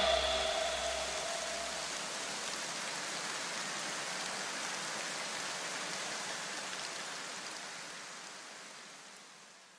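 Steady rain-like hiss that fades out near the end, with the last tones of music dying away in its first second or two.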